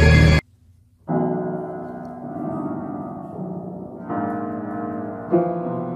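A grey cat walks across a piano keyboard and presses the keys with its paws, sounding about four loose clusters of notes that each ring on and fade. At the very start a loud sound from the end of the previous clip cuts off abruptly, then there is a moment of silence.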